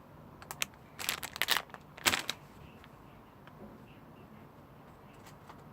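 Rustling and crinkling as a squishy toy and its plastic wrapping are handled, in a few short bursts in the first couple of seconds, then quiet handling.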